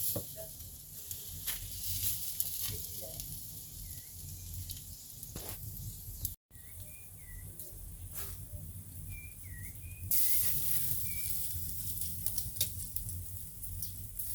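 Meat sizzling on a charcoal grill, fat dripping onto the hot coals with a steady hiss and scattered crackles and pops; the sizzle grows louder about ten seconds in. A bird chirps a few times in the second half.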